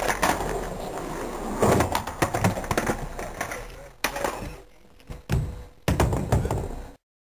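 Skateboard clacking and knocking on concrete as it is handled and rolled, with indistinct voices in the background; the sound cuts off suddenly near the end.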